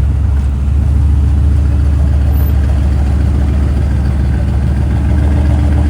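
A car engine idling or running slowly, with a steady low hum and no revving.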